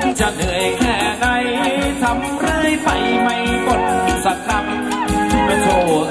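Live Thai ramwong dance band playing loudly through a PA: a drum kit keeps a steady dance beat under electric guitar and a sung melody.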